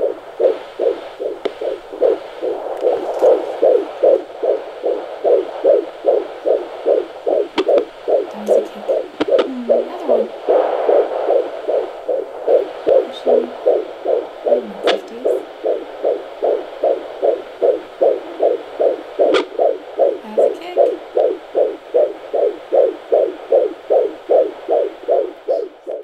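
Fetal heartbeat at 23 weeks played through a handheld fetal Doppler's speaker: fast, even whooshing pulses, about two and a half a second, matching the monitor's reading of around 151 beats a minute.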